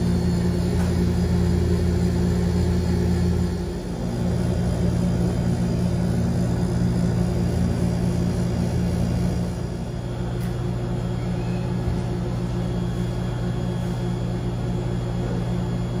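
Deli case's refrigeration unit running, its hermetic compressor and condenser fan giving a steady low hum, freshly restarted and working to pull down a hot cabinet. The hum dips briefly about four seconds in and runs a little quieter from about ten seconds in.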